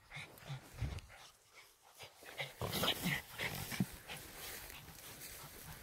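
Japanese Spitz running up close through long meadow grass, the grass rustling, with short quick breaths that come about four a second and get louder from about halfway through as the dog reaches the microphone.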